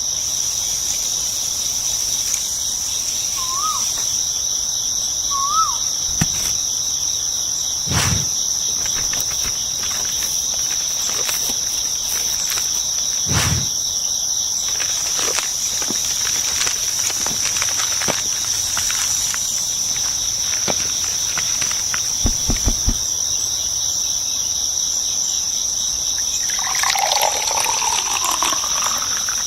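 Steady high-pitched drone of insects, crickets or cicadas, with two brief chirps early and a few sharp knocks, including a quick cluster of taps about two-thirds of the way through.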